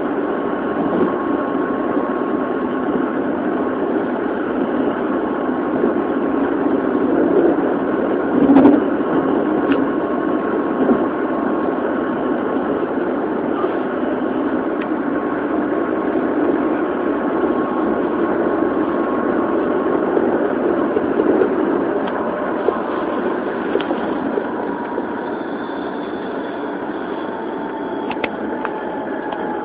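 Running sound inside an Odakyu 1000 series electric train motor car (Mitsubishi GTO-VVVF), recorded on a mobile phone: a steady rumble of the car under way with a faint steady whine, and a single knock about nine seconds in. Near the end the whine starts to fall in pitch.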